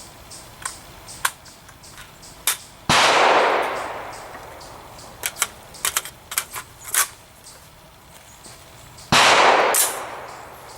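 Two shots from a short-barrelled AR-15 pistol with an 8.5-inch barrel and birdcage flash hider, about six seconds apart, each a loud crack that rings away over about a second. Quieter, sharp clicks and snaps come in between.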